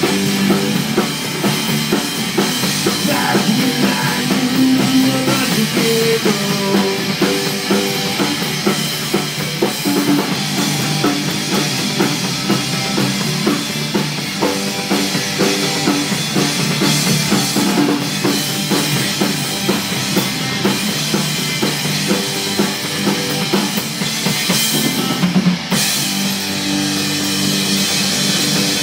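Live rockabilly band playing: two electric guitars, an upright double bass and a drum kit.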